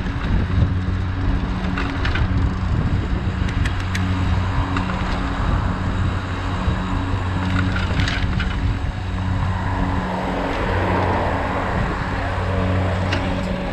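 City traffic heard from a moving cargo bike: wind on the microphone, road noise and a low, steady engine hum, with a few sharp rattles and clicks from the bike.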